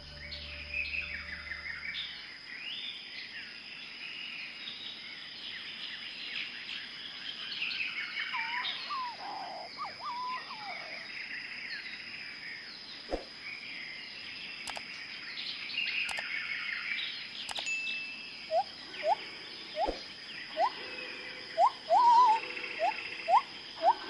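Forest birdsong: several birds chirping and trilling at once over a steady high-pitched tone. In the last few seconds a series of short, rising whistled calls repeats about once a second and grows louder.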